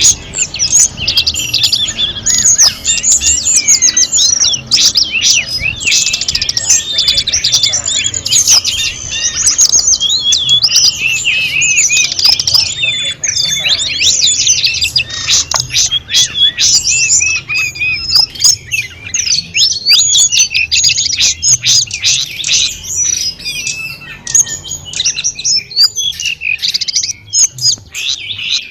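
A wild tledekan gunung singing a fast, unbroken, varied song of rapid chirps, trills and whistles. A low steady background noise runs beneath it.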